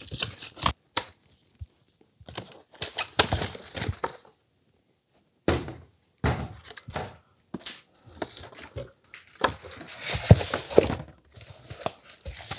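Cardboard packaging being handled: box flaps and cardboard inserts scraping and rustling as they are pulled apart, with a string of sharp thunks as pieces are knocked and set down on the workbench.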